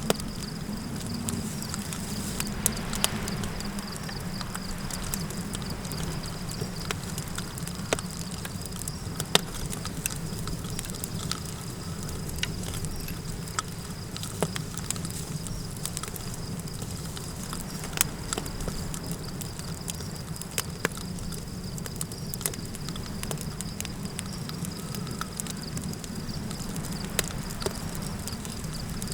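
Campfire crackling, with sharp pops scattered irregularly throughout, over a steady low rumble and a continuous high insect trill like crickets.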